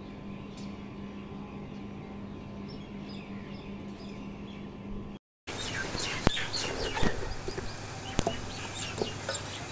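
Thick masala paste frying in a large aluminium pot while being stirred with a wooden spoon, with a few sharp knocks of the spoon against the pot after a brief break about five seconds in. There is a steady low hum in the first half, and birds chirp in the background.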